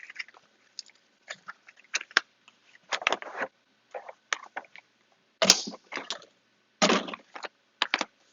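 Ink cartridge packaging being handled and opened: scattered clicks and taps, with three louder short rustling, scraping bursts spaced a couple of seconds apart.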